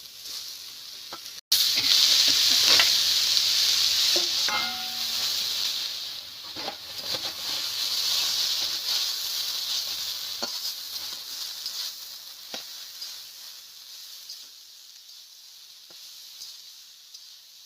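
Shredded banana stem frying in hot oil in a pan: a loud sizzle that starts about a second and a half in and slowly dies down, with occasional scrapes and knocks of stirring.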